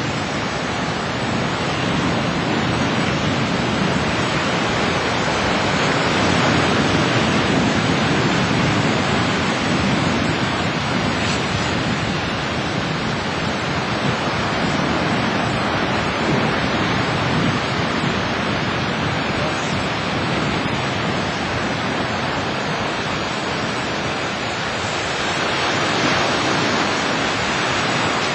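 Sea surf washing onto the beach: a steady rushing noise that slowly swells and eases, with wind on the microphone.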